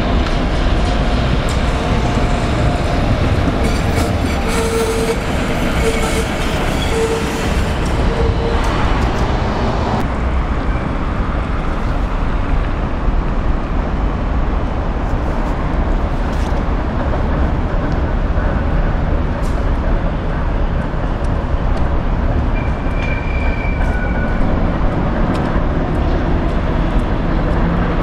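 Vintage museum tramcars running on a curved section of track: a steady heavy rumble of wheels and traction motors. A wavering squeal from the bogies comes about four seconds in and lasts several seconds, and a brief higher squeal comes near the end.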